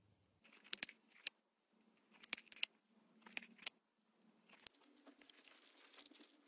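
Faint handling sounds of a doll being packed: a scatter of sharp clicks and crinkles, then a soft rustle near the end as the doll is laid into a padded fabric case.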